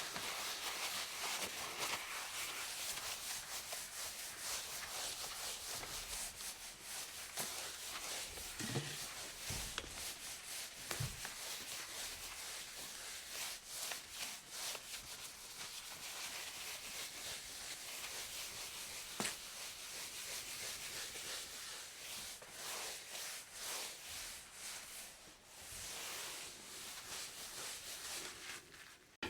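Continuous rubbing and scraping noise, dense with small crackles, running without a break.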